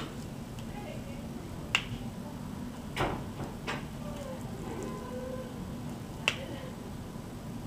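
Four sharp clicks and taps, irregularly spaced, from a hand pressing down on a folded paper origami frog.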